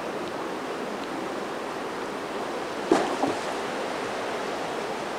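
Steady rush of a mountain stream, a broad even hiss of running water, with a single brief knock about three seconds in.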